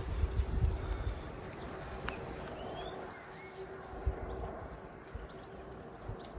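Steady high-pitched insect trill, with low thumps and rustling in the first second or so.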